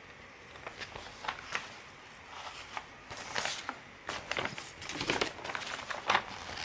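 Large printed cross-stitch pattern sheets rustling and crackling as they are handled, flipped and unfolded, in uneven handling noises that come louder toward the end.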